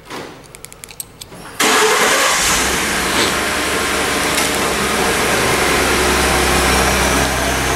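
2011 Ford F-150's 3.5-litre twin-turbo EcoBoost V6 starting by remote start: about a second and a half in, the engine suddenly fires and settles into a steady idle. A loud rush of air runs along with it.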